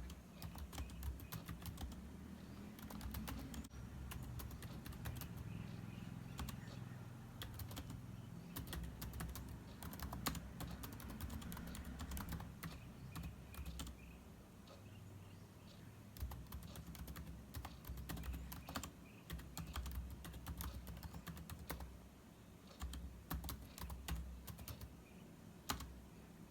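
Typing on a computer keyboard: quick, irregular runs of key clicks with short pauses, over a low steady hum.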